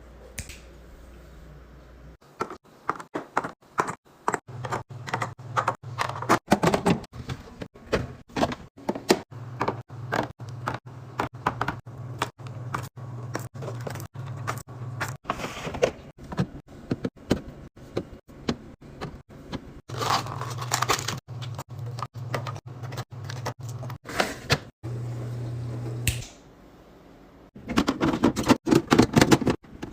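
Containers, jars and food packages being set down and arranged on refrigerator shelves: many quick light clicks, taps and scrapes of plastic and glass. A low steady hum runs under several stretches, and there are longer rustling bursts about two thirds of the way through and near the end.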